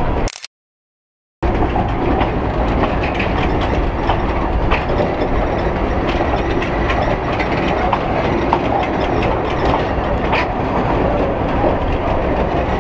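A narrow-gauge railway carriage running along the track, heard at the carriage window: a steady rumble with the wheels clicking irregularly over the rail joints. The sound cuts out completely for about a second near the start.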